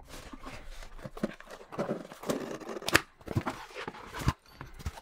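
Cardboard box being handled and opened: rustling and scraping of the cardboard flaps, with a few sharp knocks and taps, the loudest about three seconds in and again a little past four seconds.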